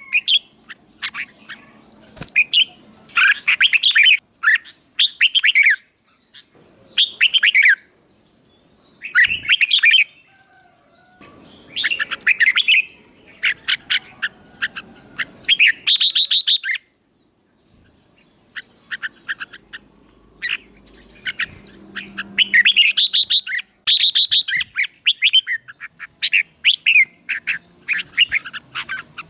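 Songbird singing in repeated short bursts of rapid, chattering notes with brief pauses between phrases, in competition-style song.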